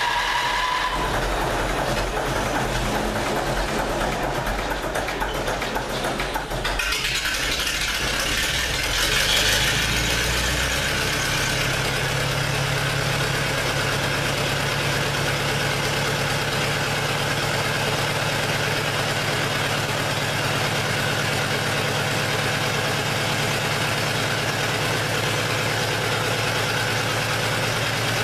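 Lister JK4 four-cylinder diesel engine turning over on its electric starter for about seven seconds, then firing and catching, revving up briefly, and settling into steady running.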